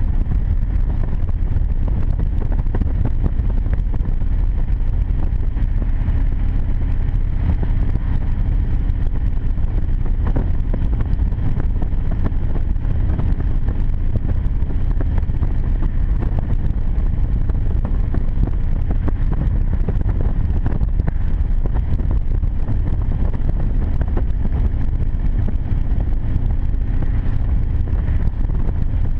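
Harley-Davidson Heritage Softail Classic V-twin running steadily at cruising speed, its engine pulse heard with wind buffeting the handlebar-mounted camera's microphone.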